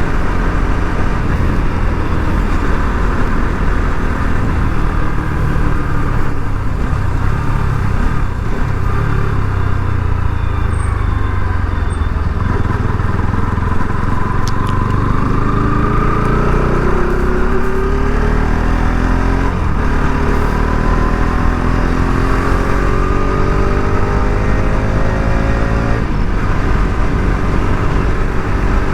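Bajaj Pulsar RS 200's single-cylinder engine under way, with heavy wind rush on the microphone. The engine note falls about ten seconds in, then climbs steadily as the bike accelerates and drops off suddenly near the end.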